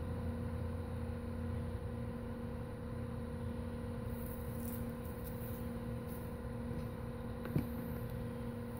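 Steady low hum with a faint steady tone, and one short click about seven and a half seconds in.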